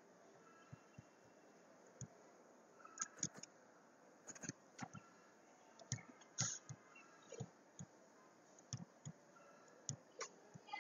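Faint computer mouse clicks and keyboard keystrokes, short sharp clicks spaced irregularly with a few quick clusters.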